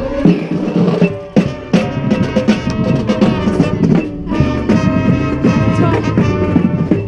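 Marching band playing its show: brass chords over drumline hits, with short breaks about a second in and again past the middle.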